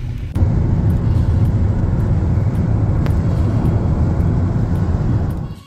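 Steady low rumble of a moving road vehicle, starting abruptly about a third of a second in and cutting off just before the end, with a single faint click about three seconds in.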